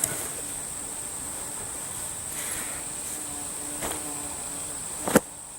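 Steady high-pitched drone of insects throughout, with a few faint clicks and a single loud sharp bang near the end.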